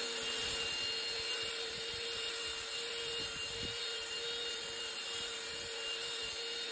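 Power tool running at a steady speed on car paint: a constant whine over a high hiss.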